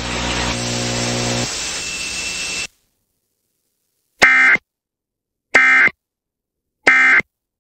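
Emergency Alert System end-of-message signal: three short identical bursts of screeching data tone, about a second apart, closing the alert. Before them a buzzing hum with hiss cuts off suddenly into silence.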